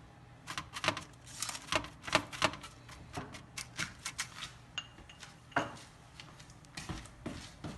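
A kitchen utensil clicking, tapping and scraping against a dish in irregular small knocks, one a little louder past the halfway point, as garlic butter is spread over sweet potato slices.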